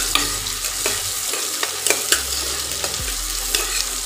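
Chopped onion sizzling in hot mustard oil in a non-stick pot, stirred with a metal spoon that clicks and scrapes against the pan again and again.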